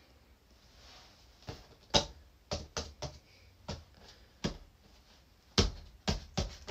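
About ten light, irregular knocks and taps from a small white bear-shaped figure being handled and set down on a stool, starting about a second and a half in.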